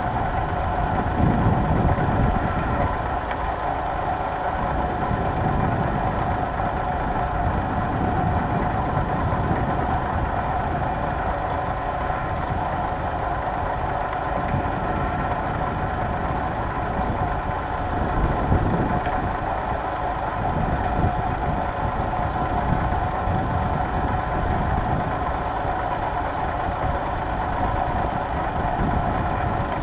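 Tractor engine running steadily while pulling a plough.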